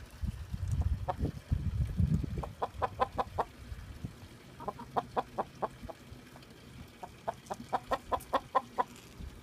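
Chickens clucking in three quick runs of short, rapid clucks, about five or six a second. A low rumble fills the first two seconds.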